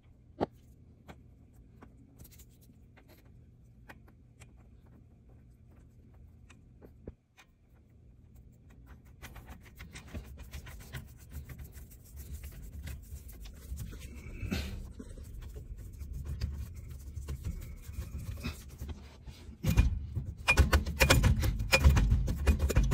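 A series of clicks and knocks, sparse at first, growing denser and louder from about nine seconds in and busiest over the last three seconds.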